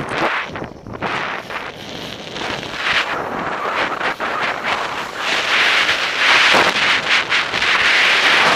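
Wind rushing over the microphone of a camera worn by a downhill skier, mixed with the hiss and scrape of skis on packed snow. It grows louder from about five seconds in.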